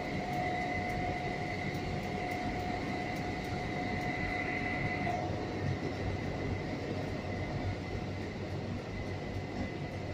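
A steady low rumble of background noise with a faint steady whine over it. The whine weakens about five seconds in.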